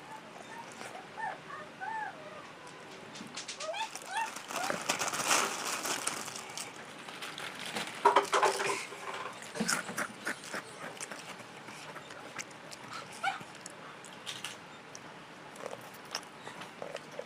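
Close-up eating sounds: chewing and crunching spicy chicken feet and crackers, with wet mouth clicks and smacks, loudest about eight seconds in. A few short rising-and-falling chirps sound in the first few seconds.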